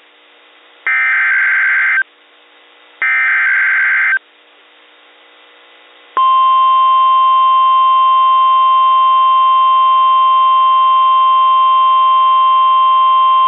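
NOAA Weather Radio Emergency Alert System activation for a Severe Thunderstorm Warning: the last two of the three SAME digital header bursts, each a harsh buzzing data burst about a second long, a second apart, with faint radio hiss between them. About six seconds in, the steady 1050 Hz Weather Radio warning alarm tone starts and holds.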